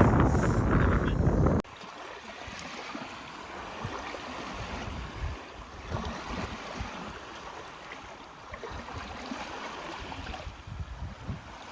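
Wind rushing over the microphone, cut off suddenly about a second and a half in. Then comes a quieter, steady wash of lake water lapping, with light wind gusts.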